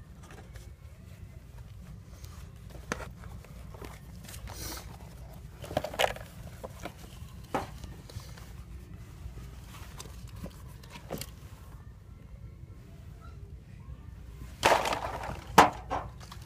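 Halloween masks being handled and pushed around on a store shelf: scattered rustles and light knocks, with a louder rustle and a sharp knock near the end, over a steady low hum.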